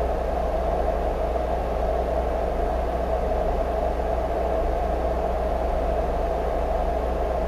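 Steady background hum and hiss, unchanging throughout, with a low hum beneath a band of noise.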